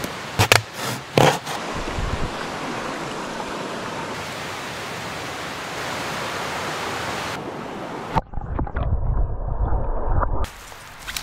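A few sharp knocks as a backpack and its gear are set down on the ground, then the steady rush of a mountain stream. Near the end the sound turns to a muffled low rumble of the same water heard from underwater, cutting off sharply after about two seconds.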